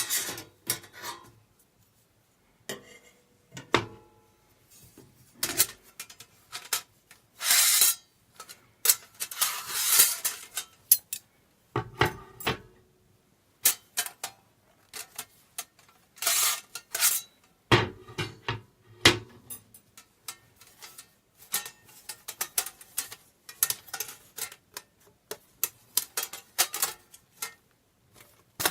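Metal parts of a portable fire pit clinking, knocking and scraping together as they are handled, in irregular bursts with a few longer scrapes.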